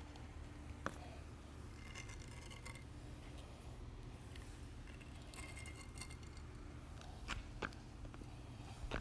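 Faint steady low hum of a large room with a few light clicks and taps: one about a second in and a small cluster near the end, as hand tools work a wet epoxy floor.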